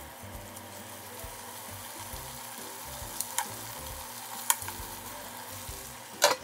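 Chicken tenderloins sizzling steadily in a frying pan over medium heat, with a few sharp clicks of metal tongs against the pan as the pieces are turned. Near the end a glass pan lid with a steel rim is set down on the pan with one loud clank.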